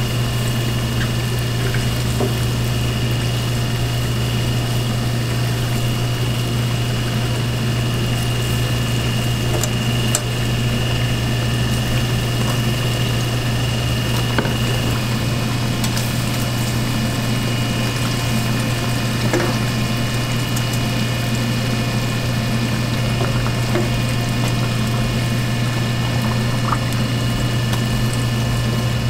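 Glutinous rice pretzels deep-frying in hot oil: steady bubbling and sizzling over a constant low hum, with a few light clicks of metal tongs.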